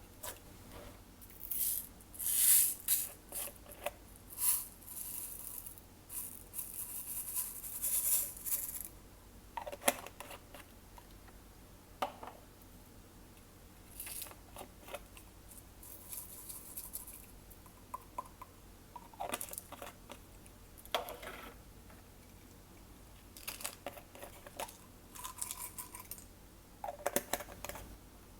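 Glossy slime being squished and stretched by hand, giving irregular clusters of crackling and clicking bursts that are busiest in the first third and sparser after.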